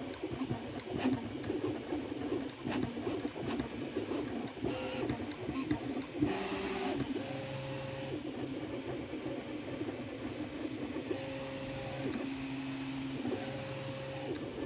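Original Prusa Mini 3D printer's stepper motors running during a print: first a busy, fluttering buzz with a few ticks from quick short moves, then from about six seconds in a run of steady whines, each held about a second, jumping between several pitches as the print head changes moves.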